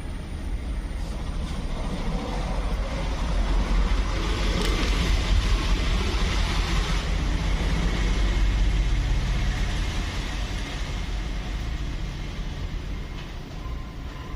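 Low engine rumble of a passing motor vehicle, growing louder over the middle several seconds and then fading away.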